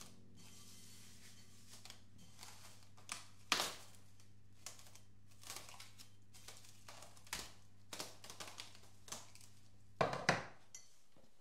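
Kitchen handling sounds: scattered light taps, clicks and knocks of utensils and containers, over a steady low hum. The hum stops about ten seconds in, just as two louder knocks come close together.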